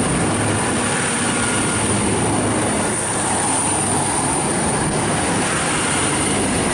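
V/Line VLocity diesel multiple unit departing and passing close by, its diesel engines and wheels running steadily on the rails.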